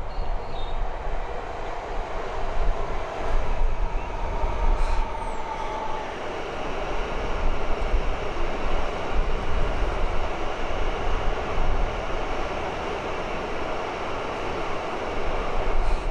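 An electric High Capacity Metro Train (HCMT) running past: a steady rush of wheels on rail, with a faint whine for a couple of seconds about four seconds in.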